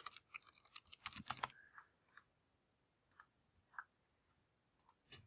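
Faint computer keyboard typing a short word in a quick run of keystrokes over about a second and a half, followed by a few scattered single clicks, typical of a computer mouse.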